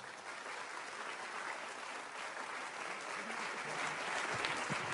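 Large audience in an assembly hall applauding steadily after a speech ends, swelling in the first second and holding, with a few faint voices underneath.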